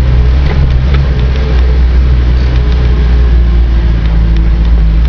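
Car engine and road noise heard from inside the cabin as the car drives slowly: a loud, steady low rumble, with a few faint clicks in the first couple of seconds.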